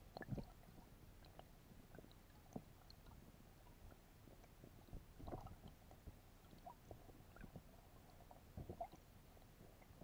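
Faint underwater sound heard through a submerged camera: a low muffled hiss with scattered small clicks and a few soft low thumps, the strongest just after the start, about five seconds in and near the end.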